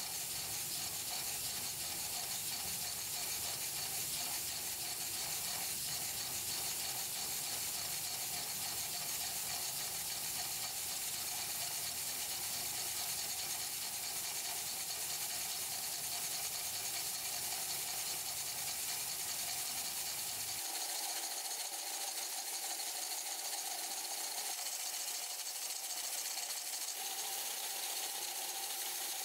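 3D-printed oscillating-cylinder air engine running steadily on compressed air: a continuous hiss of air venting from the pivoting cylinder with a fast mechanical clatter. The low background rumble drops out about two-thirds of the way through.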